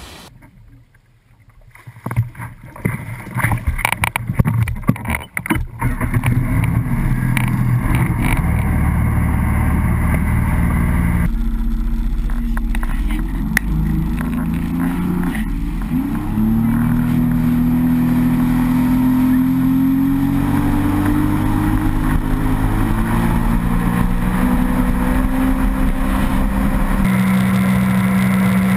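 Sea-Doo GTR 230 personal watercraft's supercharged 230-hp Rotax engine running hard at high speed, heard from on board with rushing wind and water. A few seconds of gusty buffeting come first, then the engine is steady and loud, its pitch climbing about halfway through as the throttle opens.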